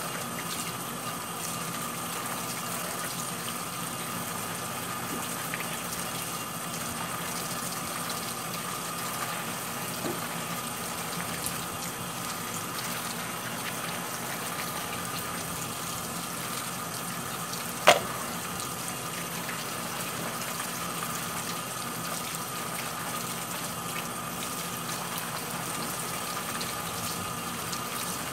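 Water from a kitchen tap running steadily into a sink full of small green lemons as they are washed by hand. One sharp knock stands out about two-thirds of the way through.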